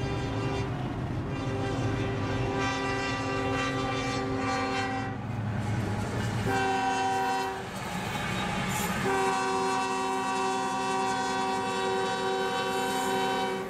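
CSX freight locomotive's air horn sounding for a grade crossing: a long blast, a short one, then another long blast, several tones sounding together as a chord.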